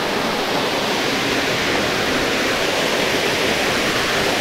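Stream water rushing, a loud steady noise without a break.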